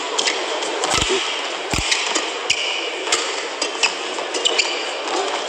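A badminton rally: sharp racket strikes on the shuttlecock and shoes squeaking and stamping on the court, over the steady murmur of a large arena, with two heavier thumps about one and two seconds in.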